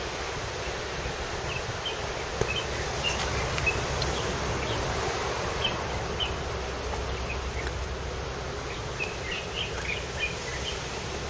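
Outdoor ambience: a steady hiss and hum with scattered short, high bird chirps.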